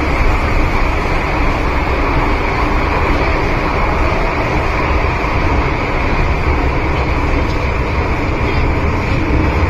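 Loud, steady running noise inside a car of an MTR Kwun Tong Line M-Train (Metro-Cammell EMU) travelling at speed in the tunnel: an even rumble of wheels on rail with a constant roar over it.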